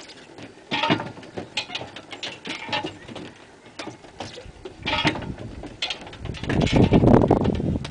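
A large wooden walk-in wheel turning as a person runs inside it: footfalls knock on the wooden slats and the wheel clatters on its frame. A louder low rumble comes near the end.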